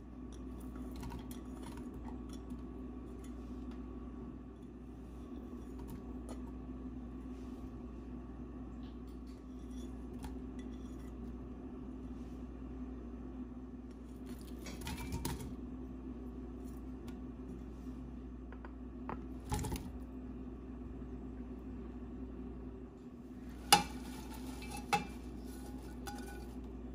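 Ingredients tipped from a plate into a stainless-steel pressure cooker over a steady low background hum. There are a few scattered clinks and knocks of the plate and pieces against the steel pot, the sharpest about three seconds before the end.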